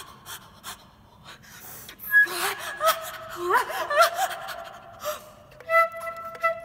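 Solo flute played with extended techniques: sharp gasping breaths into the instrument, then short swooping pitched cries mixed with breath noise, and near the end a single steady note that pulses repeatedly. The gasps portray the dying Pan struggling for breath.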